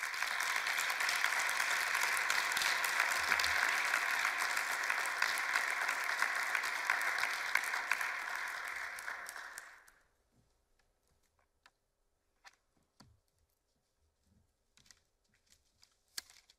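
Audience applauding, a dense patter of many hands that dies away about ten seconds in. After it, only a few faint knocks and rustles.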